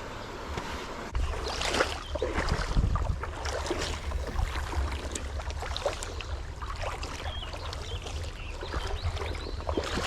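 Creek water rushing and splashing in the current, with wind rumbling on the microphone from about a second in.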